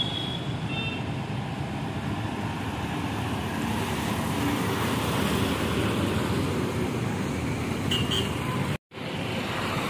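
A sleeper coach drives past close by: steady engine and tyre noise from the bus and the traffic behind it. A vehicle horn toots just as it begins and again briefly about eight seconds in, and the sound cuts out for a moment near the end.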